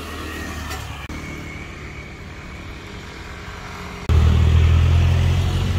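A motor idling, a steady low hum that becomes much louder and heavier from about four seconds in.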